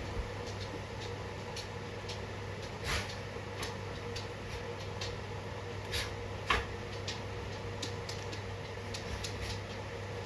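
Akita dog sneezing: a few short, sharp bursts, about three seconds in and again around six seconds, over a steady low room hum.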